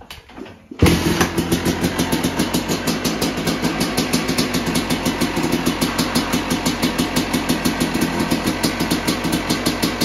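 A freshly rebuilt Yamaha YZ250's single-cylinder two-stroke engine fires up suddenly about a second in, then idles steadily with an even, rapid pulsing beat.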